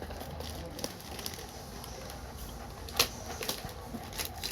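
A product package being handled and opened: scattered light crinkling and ticking, with one sharp click about three seconds in.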